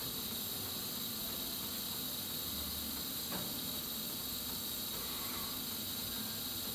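Steady hiss of a gas furnace's pilot light burning while the main burners fail to light, over a faint low hum, with a faint tick about three seconds in.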